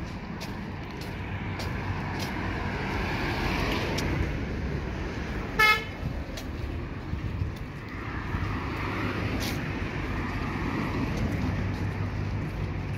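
Street traffic, with vehicles passing in swells, and one short car horn toot about five and a half seconds in, the loudest sound.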